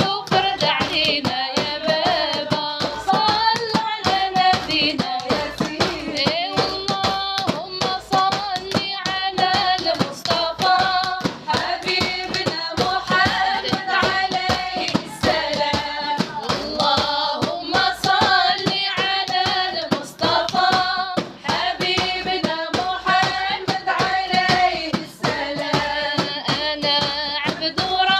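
A group singing a devotional song in praise of the Prophet, with rhythmic hand clapping and percussion keeping a steady beat.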